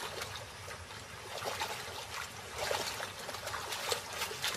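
Shallow river water splashing repeatedly as a Grant's gazelle bounds through it and a crocodile lunges.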